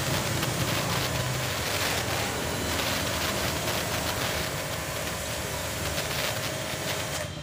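Pressure washer spraying a jet of water onto a motorcycle: a steady hiss of spray with a faint steady whine underneath, which cuts off sharply near the end.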